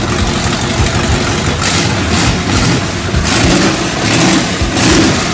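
A demolition derby car's engine running through short open upright exhaust stacks, revving up in several surges between stretches of rough running.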